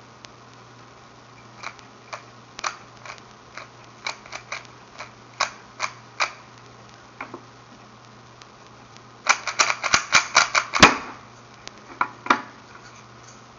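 Rubik's cube layers clicking as they are turned by hand: scattered single turns at first, then a fast run of clicking turns about two-thirds of the way through, ending in the loudest clack, and a few more turns after. A faint steady hum runs underneath.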